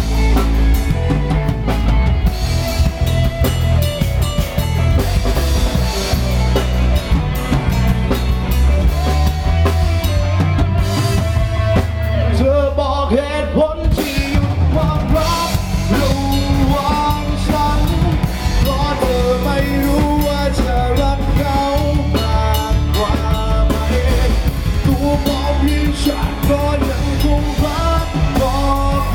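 Pop-rock band music with a full drum kit and bass under melodic lines; the drums and bass drop out for about two seconds near the middle, then the band comes back in.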